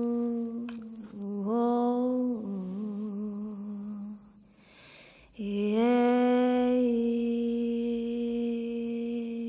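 A single voice humming a slow, wordless tune in long held notes, with a short break about four seconds in before one long sustained note.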